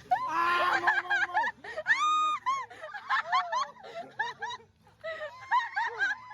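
High-pitched laughter and squeals in short bursts, with one held squeal about two seconds in; it starts suddenly.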